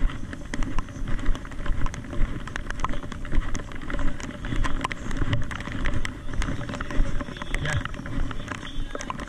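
Rain: many irregular drops tapping close to the microphone over a steady low rumble.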